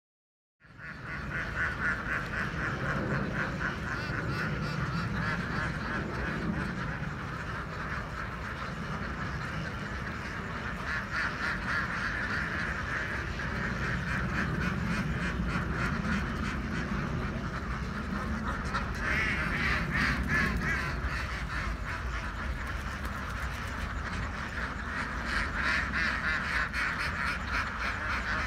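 A large flock of farmed ducks quacking continuously in a dense, overlapping chorus.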